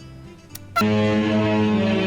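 The Disney Magic cruise ship's musical horn plays a tune, holding deep notes that step from one pitch to the next. It starts up again about 0.8 s in after a short lull, just after two sharp clicks.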